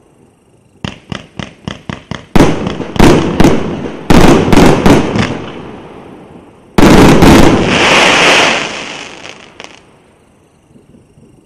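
A 1.2-inch, 100-shot consumer fireworks cake firing its final shots: a quick run of sharp pops, then several volleys of loud bangs as shells burst, and about seven seconds in a dense salvo of bangs with a hiss that dies away near the end.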